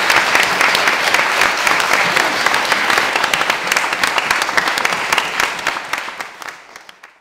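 Congregation applauding, a dense patter of many hands clapping that fades away over the last second or two.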